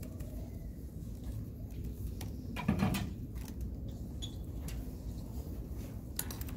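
Dry-erase markers clicking and scraping against a whiteboard over a steady low room hum, with one louder short knock about three seconds in.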